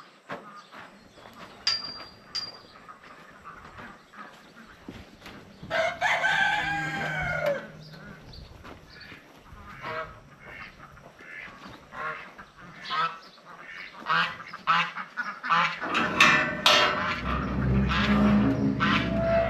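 A domestic farm bird gives one long call about six seconds in, falling in pitch at its end, over footsteps and scattered knocks. Near the end come a low rumble and clanking as a steel pen gate is handled.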